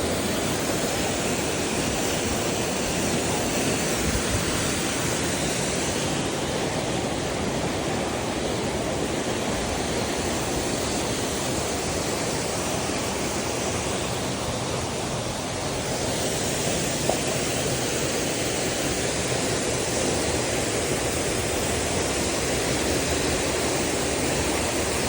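Waterfall's water rushing, a steady even roar with no breaks.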